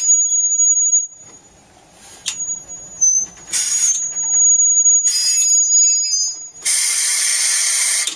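Steel wheels of a slow-moving trolley squealing on the rails in high, steady whistling tones that come and go, with loud bursts of hiss, the longest near the end.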